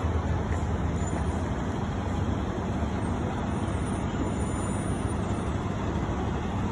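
Steady city street traffic noise: a continuous low rumble of motor vehicles running close by.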